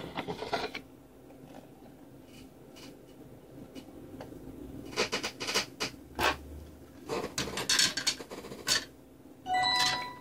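Irregular rubbing and scraping handling noise, in several short strokes and clusters that grow busier in the second half. A short, loud squeak comes near the end.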